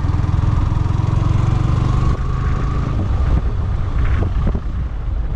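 Motorcycle engine running steadily on the move, with an even low drone throughout.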